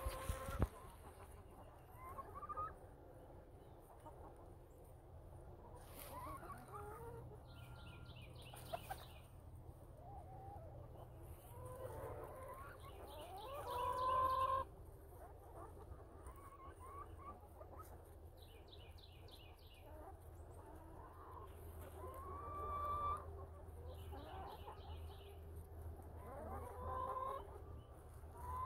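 Chickens clucking and calling, with drawn-out rising calls scattered throughout, loudest about 14 seconds in. Several short, fast, high trills are heard a few times.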